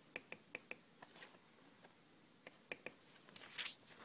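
Near silence broken by about a dozen faint, short clicks and taps of hand handling around the paper and pencil, with a brief soft rustle near the end.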